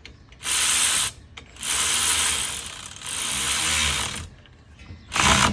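Ratchet wrench clicking in four quick bursts as a 14 mm caliper bolt is run down and tightened on a front brake caliper.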